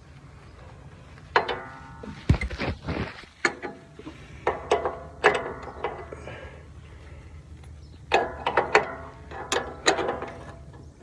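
Ratchet wrench clicking in several short bursts with a metallic ring as a lock nut is tightened onto the belt tension-spring bolt, pausing between strokes.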